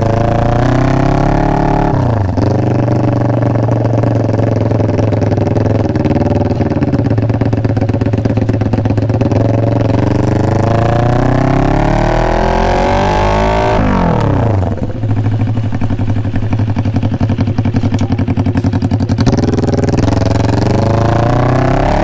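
Inline-four Kawasaki Ninja sport bike accelerating through an SC-Project slip-on exhaust. The revs climb, fall quickly about two seconds in, hold, climb again, and drop sharply about fifteen seconds in before rising once more.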